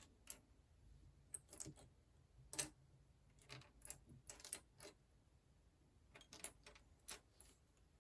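Small plastic building blocks being handled and pressed together: faint, irregular clicks and taps, some in quick clusters of two or three.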